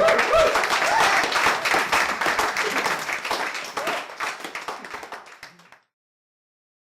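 Audience applauding, with a few voices calling out among the clapping in the first second or so. The applause thins and then cuts off abruptly about six seconds in.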